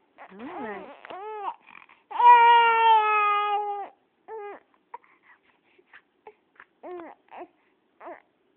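Baby crying: a few short rising-and-falling cries, then one long, loud wail about two seconds in. It trails off into short, quieter whimpers and fussing.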